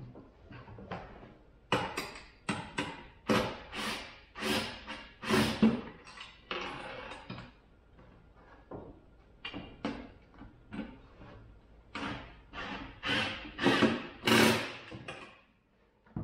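Irregular runs of short clunks, knocks and rattles from tools working on the bolts and nuts of a plastic A-arm guard as they are tightened. The sounds come in two busy clusters, one a couple of seconds in and one near the end, with a quieter stretch between.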